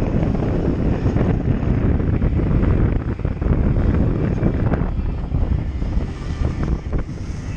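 Wind buffeting the microphone on a sailboat close-hauled in about 20 knots, a loud, steady low rushing, with the hiss and slap of choppy water along the hull.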